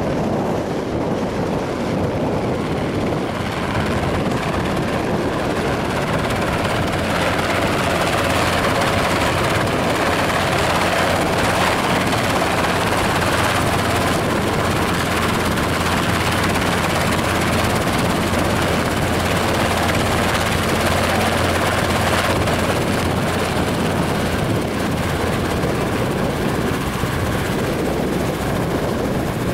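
Small light helicopter's rotor and engine running steadily while it hovers in close. The sound grows louder as it approaches, then eases a little near the end as it settles on its skids with the rotor still turning.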